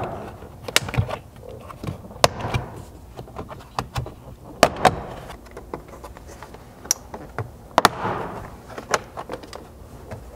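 Plastic retaining clips of a Ford Bronco rear door trim panel popping loose as the panel is pulled off the door: a series of sharp pops spread out one after another, with plastic rubbing and rustling between them.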